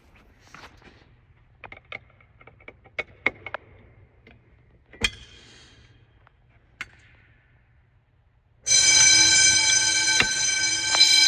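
A series of clicks and knocks, then, about three-quarters of the way in, the fire alarm system's continuous bells start ringing all at once, loud and steady.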